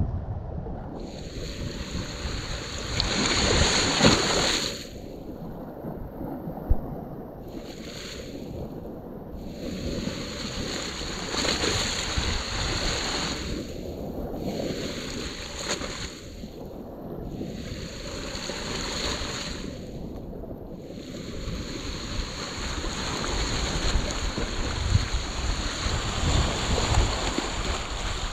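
Sea waves washing and sloshing in the shallows, with wind on the microphone; the hiss of the water fades and swells every few seconds.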